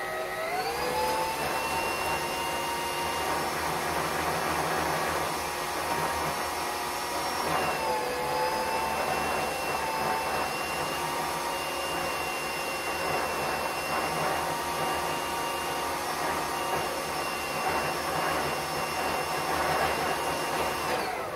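Electric stand mixer motor creaming butter with granulated and brown sugar: it spins up with a rising whine, runs steadily with a slight dip in pitch about a third of the way in as the load shifts, then winds down near the end.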